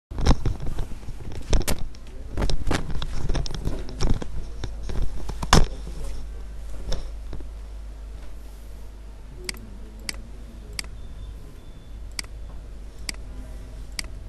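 Computer mouse clicks, about six short sharp ones spaced a second or so apart in the second half, over a low steady hum. The first six seconds hold louder knocking and rustling, with one hard knock near the middle.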